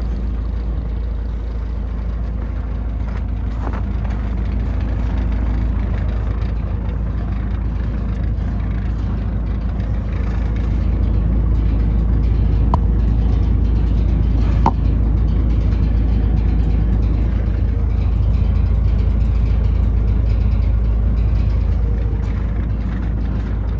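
Scania P124 truck's 12-litre straight-six diesel engine idling steadily, a continuous low rumble with a few faint ticks midway.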